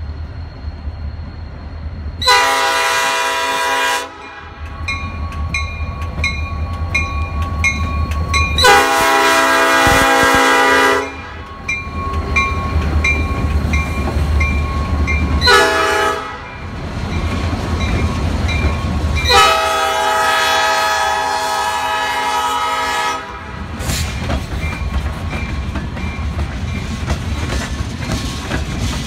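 Air horn of a passing EMD GP40-2 diesel freight locomotive sounding the grade-crossing signal: long, long, short, long, over the low rumble of the running diesel. After the last blast the freight cars' wheels clatter steadily along the rails.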